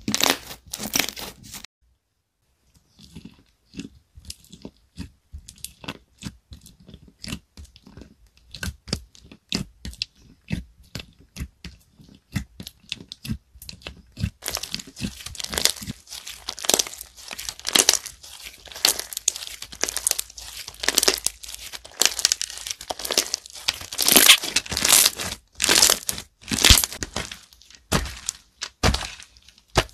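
Hands squishing, pressing and stretching thick white slime with small coloured beads mixed in, making quick crackling pops and clicks. There is a short pause about two seconds in, and the crackling grows denser and louder from about halfway.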